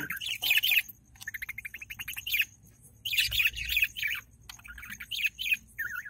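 Budgerigar chicks chirping in the nest: bursts of quick, high chirps with short pauses between, including one rapid run of chirps about a second in.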